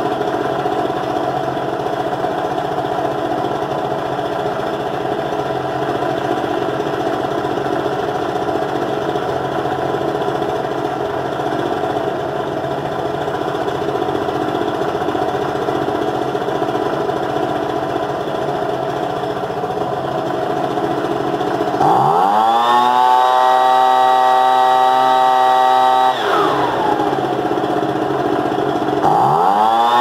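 Ryobi BP42 backpack blower's 42cc two-stroke engine running steadily at low speed, then revved up to full throttle about two-thirds of the way in, held there for a few seconds, let fall back, and revved up again near the end. The freshly adjusted carburettor is still running a little fat on gas.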